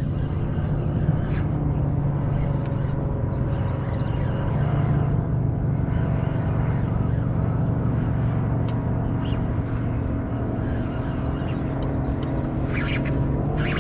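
A kayak's electric bow trolling motor runs steadily with a low hum and a faint whine over the sound of the moving water. A short hiss comes about a second before the end.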